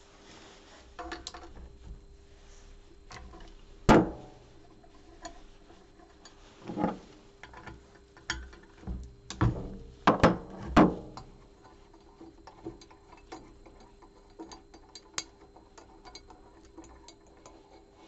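Metal knocks and clicks from hands working on a slotted aluminium rotor disc and its bolts, the loudest knock about 4 s in and a cluster of them between about 7 and 11 s. Small scattered ticks and a steady hum run underneath.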